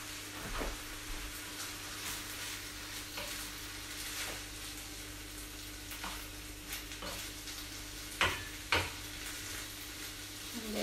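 Chopped beef and rice frying in a pan: a steady sizzle with scattered scrapes and taps of stirring, and two sharp knocks in quick succession near the end.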